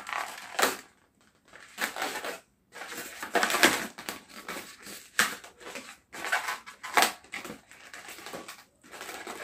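Inflated latex modelling balloon squeaking and rubbing as it is twisted and bent by hand, in short irregular spells with brief pauses between.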